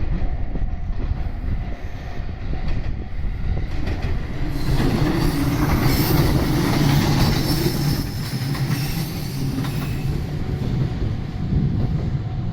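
Train passing over a level crossing: steady rumble of wheels on the rails that builds to its loudest about halfway through, with a steady hum in the middle, then eases.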